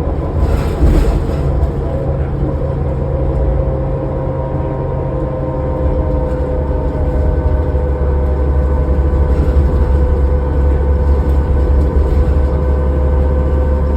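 Inside a 2005 New Flyer D40LF diesel transit bus under way: the engine and drivetrain drone, with a steady whine held at a few pitches that drifts slowly as the bus travels. A brief clatter comes about a second in.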